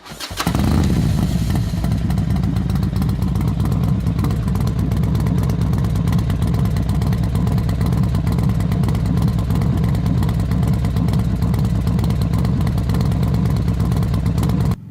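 Harley-Davidson V-twin motorcycle engine running under way, a steady low throbbing with wind rush, coming up about half a second in and cutting off abruptly just before the end.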